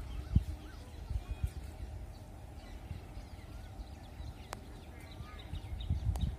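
Small birds chirping in short, repeated calls, over a low, uneven rumble with thumps on the microphone.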